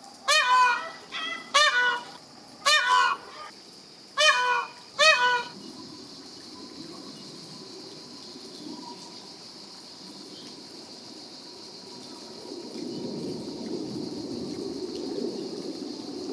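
Peacock calling: five loud, honking cries in quick succession, each sliding down in pitch, with a few softer calls between them, over about the first five seconds. After that a steady faint high hiss remains, and a low rumble builds near the end.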